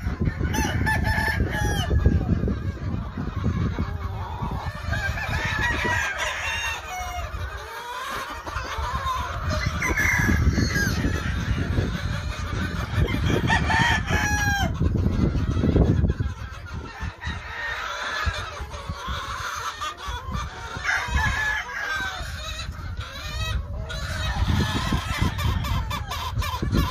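Gamefowl roosters crowing and chickens clucking, many calls overlapping, over a steady low rumble.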